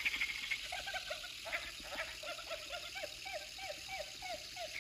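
Motion-activated bouncing Christmas toy playing its electronic sound: a rapid run of short, squeaky, repeated syllables, about three a second, as it jiggles on the carpet.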